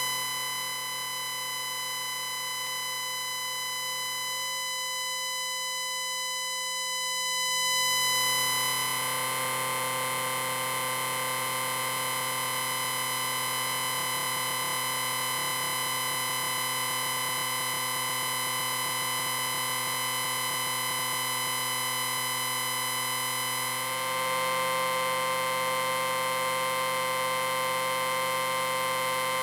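Electrical distortion and interference sound effect: a steady buzzing hum of several held tones over a hiss. It swells and grows fuller about a quarter of the way in, and shifts in tone again near the end.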